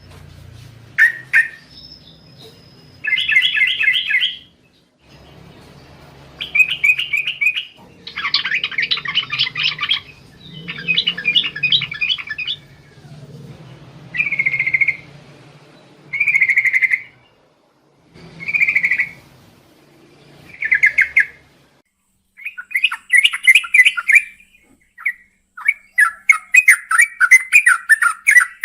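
Sooty-headed bulbul singing: a string of short, bubbling song phrases divided by brief pauses, breaking into a faster, almost continuous run of notes near the end.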